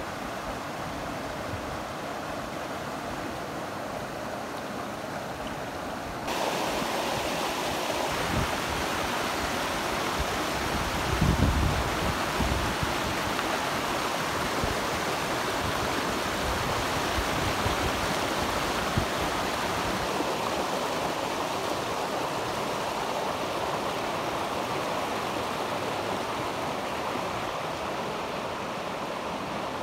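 Stream water rushing steadily over rocks, a constant wash of noise that gets louder about six seconds in. A brief low thump comes about a third of the way through.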